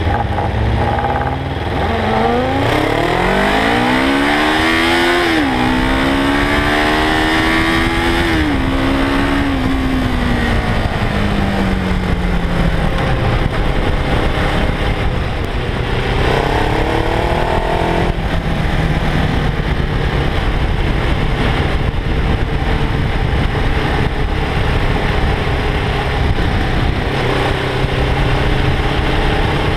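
Kawasaki KLE 500's parallel-twin engine heard onboard, pulling up through the gears in two rising sweeps with a shift between them, then dropping in pitch as the throttle is rolled off. A brief pickup follows, then a steady cruise, all under constant wind and road noise on the microphone.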